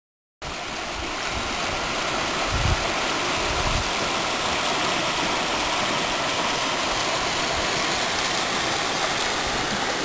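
Steady rush of a stream pouring over rocks in a small rapids, starting suddenly just under half a second in, with a few low rumbles a little after two seconds in.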